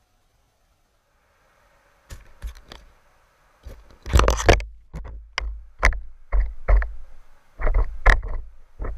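Irregular sharp knocks and clicks with a low water rumble, picked up through a submerged camera's housing as a big swimbait is worked right against the lens. The first two seconds are near silent; the knocks start about two seconds in and come in clusters, loudest a little past four seconds.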